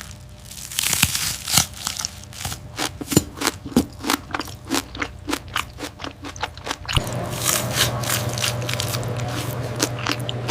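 Crisp crunching of fried chicken being bitten and chewed, a rapid run of sharp crunches. From about seven seconds in, a steady hum rises underneath and the crunches thin out.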